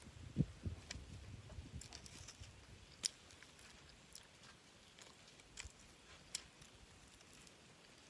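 A person chewing grilled meat and tearing it off the bone by hand, close to the microphone. Soft mouth and handling sounds in the first second and a half, then a few sharp, separate clicks and smacks.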